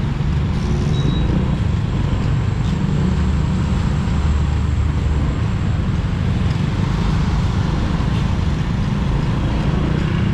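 Motorcycle running under way, its engine mixed with steady low wind rumble on the camera's built-in microphone, at an even level throughout.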